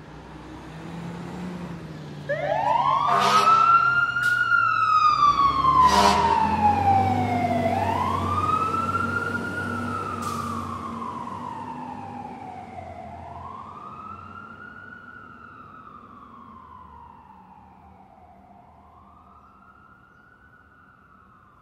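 Emergency vehicle siren in a slow wail: each cycle rises quickly and falls slowly, about every five seconds. It is loud for the first half and then fades away. A few sharp clicks come over it near the start and a low engine rumble lies under the loudest part.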